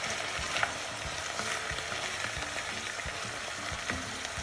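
Raw chicken pieces and sliced onion sizzling in oil in a heavy black pot as a wooden spatula stirs them, with a few light knocks; the chicken is searing and giving up its juices.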